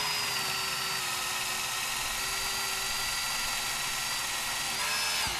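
Portable band saw running steadily as it cuts through a steel threaded rod, a steady high-pitched motor whine. Its pitch rises briefly near the end, and then it stops.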